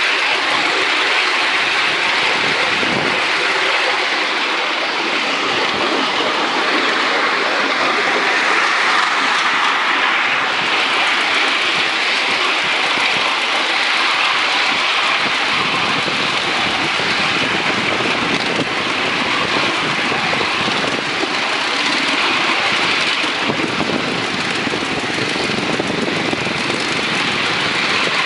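Ride-on miniature live-steam tank locomotive running along the track, heard from the car it pulls: a steady rush of running noise that holds evenly throughout.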